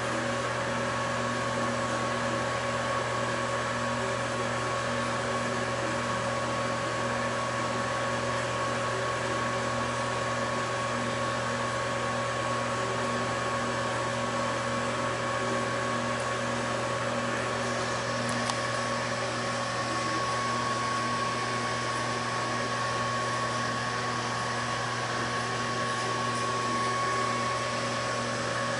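Steady machine hum with a thin high whine over a soft hiss, unchanging throughout.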